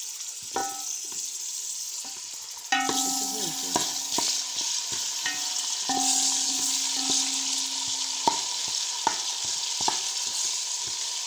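Sliced onions and ginger-garlic paste sizzling in hot oil in a metal cooking pot, with a spoon knocking and scraping against the pot as they are stirred. The pot rings briefly after the harder knocks, and the sizzle gets louder about three seconds in.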